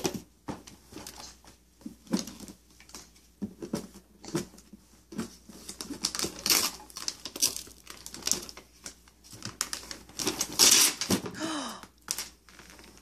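Wrapping paper being torn and crinkled off a gift box by a toddler's hands, in short irregular rips and rustles, with the biggest rip a little before the end.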